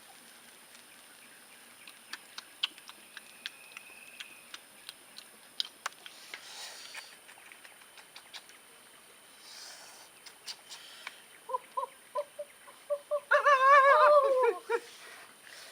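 A chicken clucking a few short notes, then giving one loud, wavering, drawn-out squawk near the end. Scattered light clicks and snaps come before it.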